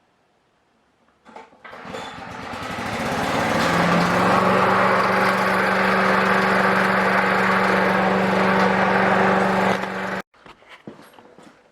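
Briggs & Stratton single-cylinder four-stroke lawnmower engine starting from cold, building up over a couple of seconds and then running steadily at speed while it warms up. The sound cuts off suddenly about ten seconds in.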